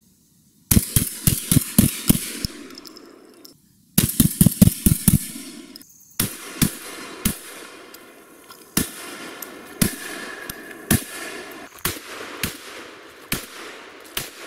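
Beretta 1301 Tactical 12-gauge gas-operated semi-automatic shotgun fired rapidly: two fast strings of shots at about four a second, then single shots every half second to a second, each with a short echo.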